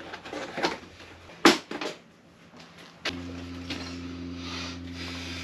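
A few sharp knocks and clatter of tools and parts being handled, then a small electric motor starts about three seconds in and runs at a steady pitch.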